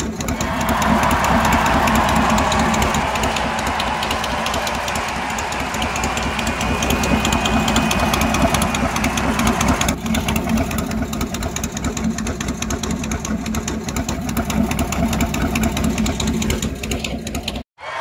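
Race car engine running loud and steady with a fast pulsing beat. The sound changes abruptly about ten seconds in and cuts off just before the end.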